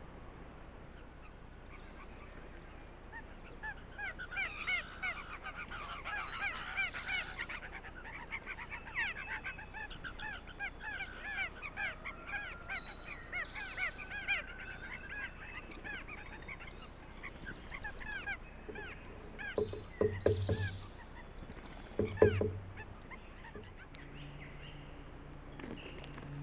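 A group of birds calling together: many short, rapid calls overlapping for most of the stretch, then tapering off. Two dull thumps come near the end, the second the loudest sound.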